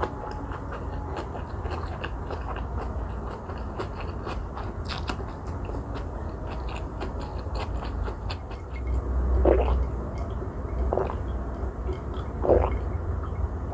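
Close-miked chewing and small mouth clicks as the last bits of a Vietnamese fresh spring roll are eaten, with some crunch from the raw vegetables. Near the end come a couple of louder gulps as she drinks from a glass jar.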